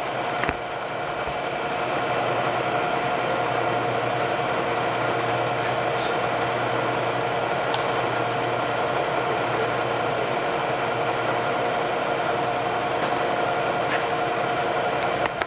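Bridgeport Series 1 2 hp milling machine running with a steady hum, with a few faint clicks over it.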